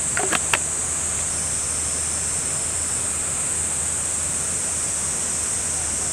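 Steady rushing of a valley stream, with a few short clicks about half a second in.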